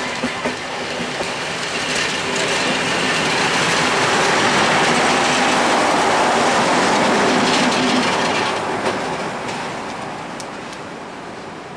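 Diesel-hauled passenger train passing close by, its coach wheels clattering over the rail joints. The sound is loudest as the red diesel locomotive goes past about halfway through, then fades as the train moves away.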